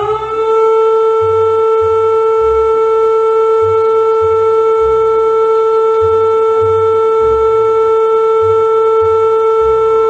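Emergency-alert alarm tone: a siren-like tone that finishes rising in pitch about half a second in, then holds one loud, steady pitch with overtones. Irregular low rumbling pulses sit underneath.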